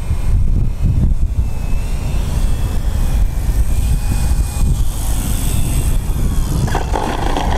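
Electric motor and propeller of an FMS Pitts 1400mm RC biplane whining faintly, its pitch sliding up and down as it comes in low over the runway, under a heavy wind rumble on the microphone. Near the end a louder rushing noise sets in.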